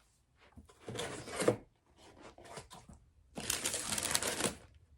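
Packing paper being handled and unwrapped, crinkling and crushing: a burst about a second in, a few light clicks and taps, then a longer, denser crinkle from about three and a half seconds.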